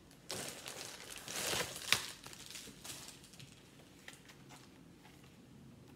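Plastic bubble mailer rustling as it is handled and opened and a phone-case package is pulled out, with one sharp click about two seconds in. For the rest of the time there are only faint handling sounds.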